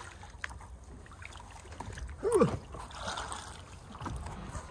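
Paddling on an inflatable paddle board: quiet water sounds and small knocks of the paddle over a low rumble of wind and handling on the phone microphone. A short falling call, like a voice, cuts in about halfway through.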